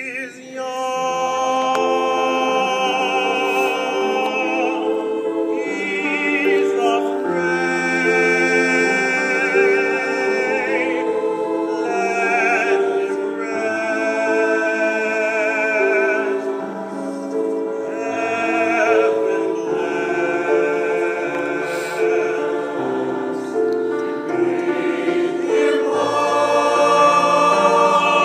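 Choir singing sustained chords in several parts, the voices held with vibrato.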